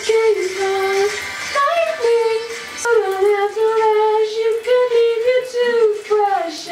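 A high voice singing long, sliding notes without words, with a shower running underneath.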